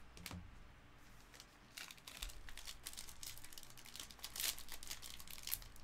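Foil wrapper of a sealed trading-card pack crinkling as it is handled and torn open by hand, in a dense crackly run from about two seconds in. A light knock comes just after the start.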